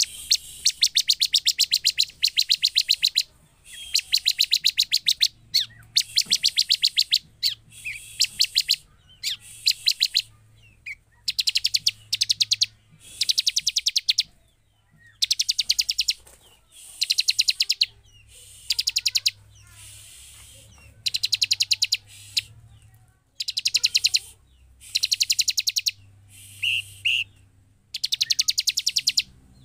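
Bar-winged prinia (ciblek) singing: loud trilled phrases of rapidly repeated high notes, each about a second or two long, coming one after another with short pauses between.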